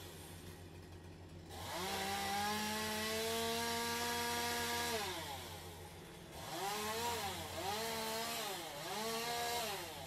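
Petrol chainsaw held at full throttle for about three seconds, then dropping off and revved in short bursts about once a second.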